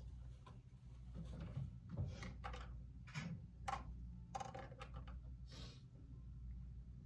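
Quiet classroom room tone: a steady low hum with scattered small knocks and rustles from students shifting and handling things at their tables.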